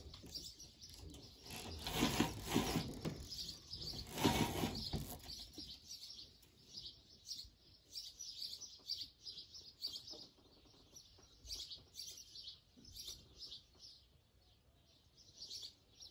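Small birds chirping, many short high calls over and over, with two louder spells of noise about two and four seconds in.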